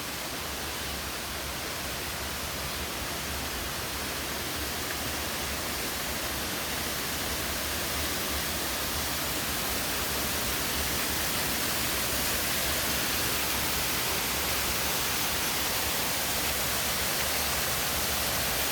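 Waterfall rushing: a steady, even roar of falling water that grows slowly louder.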